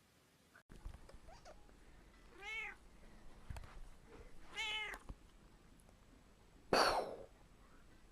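A domestic cat meows twice, two short calls that rise and fall in pitch, about two seconds apart. Near the end comes a short, louder burst of noise.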